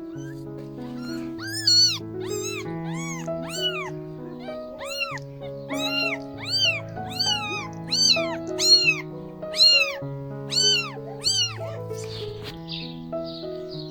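A cat meowing repeatedly in a quick series of short, high, rising-and-falling calls, about two a second, over soft background music.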